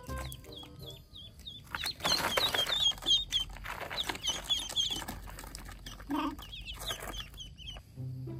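Ducklings peeping in a rapid string of short, high chirps. A plastic tarp crinkles loudly as a small monkey crawls over it, about two seconds in and again near the end.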